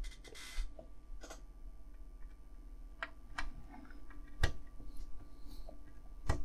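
Light, scattered clicks and ticks of a Phillips screwdriver and small screws working through a plastic panel into a die-cast metal model-car bonnet, with a short rustle near the start and two sharper clicks, one a little past the middle and one near the end.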